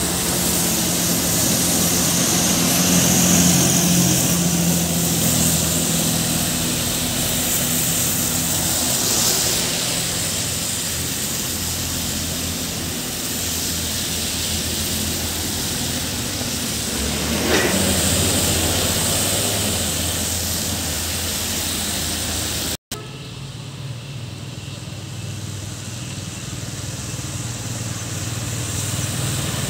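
Diesel bus engine running as it rounds a hairpin bend, over a steady hiss of tyres on the wet road as traffic passes. The sound drops out for an instant about two-thirds of the way through, then comes back quieter and swells again near the end as more vehicles approach.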